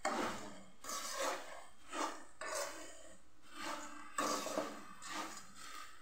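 Puffed rice being stirred and tossed in a metal pan with a metal spoon, giving a series of irregular dry scraping strokes, roughly one or two a second.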